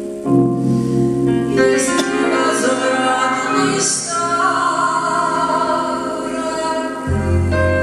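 A woman singing a song live into a microphone, with instrumental accompaniment underneath.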